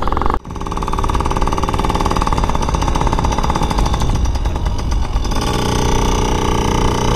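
Yamaha PW50's small two-stroke engine buzzing steadily as the mini dirt bike rolls off slowly. The engine note gets fuller about five and a half seconds in.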